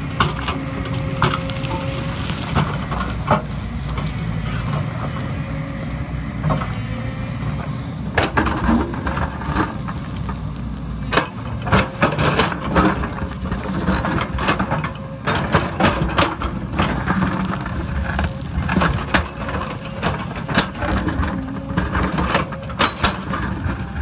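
JCB tracked excavator's diesel engine running steadily while its steel bucket digs, scrapes and knocks against rock and stony soil. Sharp clinks and knocks of rock on steel come thick and fast from about eight seconds in.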